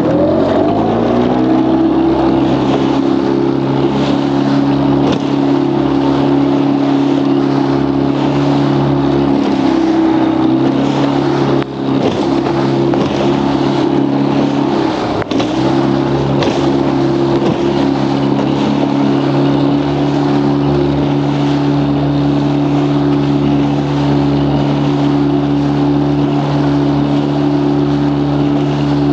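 Outboard motor of a 12-foot fibreglass boat running at high, steady throttle, its pitch rising as it comes up to speed at the start, under a heavy rush of wind and water noise from running through high waves. The engine note dips briefly twice, about twelve and fifteen seconds in, with scattered knocks of the hull on the waves.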